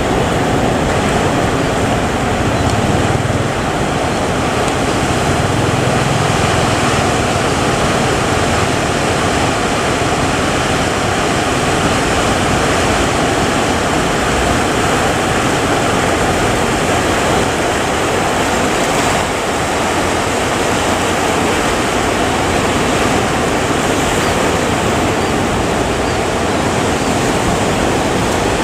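Steady rush of rough sea, waves and wind, a continuous loud noise without breaks.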